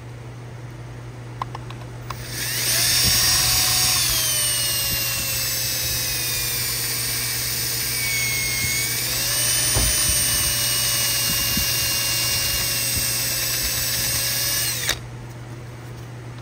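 Power drill spinning a counterbore tool, cutting a chamfer into a drilled-out bolt hole in the aluminium EJ25 engine block. It starts about two seconds in with a high whine that sags slowly in pitch as the cutter bites, picks back up near ten seconds, and stops about fifteen seconds in.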